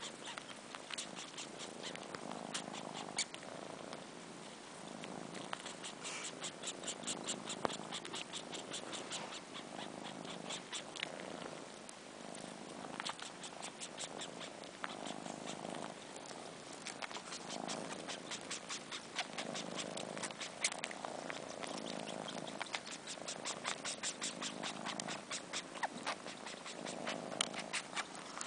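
Four-month-old kittens purring while suckling on fur, with runs of quick wet sucking clicks over a purr that swells and fades about once a second.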